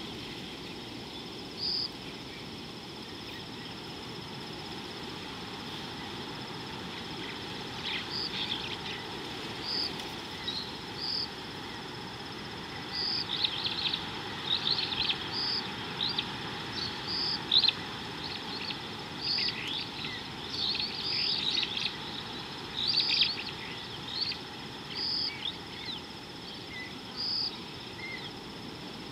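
Wild birds chirping and calling in irregular bursts over a steady insect hum and outdoor hiss, while a short high note repeats every two seconds or so.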